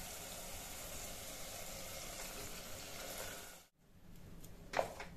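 Mushroom masala sizzling as it fries in mustard oil in a pressure cooker, a steady sizzle that cuts off suddenly about three and a half seconds in. After that it is quieter, with a single knock near the end.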